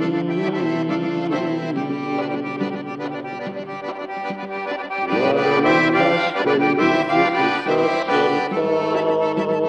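Music: an instrumental passage between the sung verses of a traditional song, with no singing.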